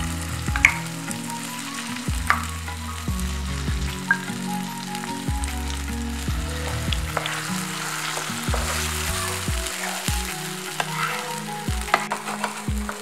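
Green pea paste sizzling in hot oil in a nonstick frying pan, with a wooden spatula scraping and tapping the pan as the paste is pressed and spread.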